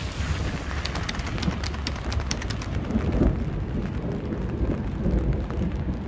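Autumn rain falling, with scattered drops ticking close by over a low, steady rumble.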